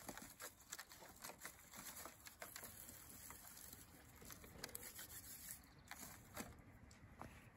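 Faint, irregular rustling and crackling of half-dried zenmai (Japanese royal fern) shoots as hands knead them against a woven bamboo sieve, the massaging done during sun-drying to make them tender.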